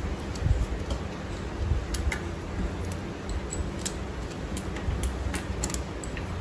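Light metallic clicks and clinks, scattered and irregular, as the steel cogs of a SRAM SX 12-speed bicycle cassette are slid onto the rear hub's freehub splines.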